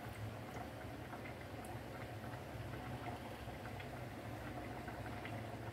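Faint light ticks and dabs of a silicone basting brush in a bowl of butter sauce, over a steady low hum.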